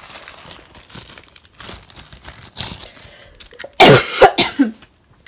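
Light rustling and handling of packaging as a pair of sunglasses is unwrapped, then a loud two-part cough near the end.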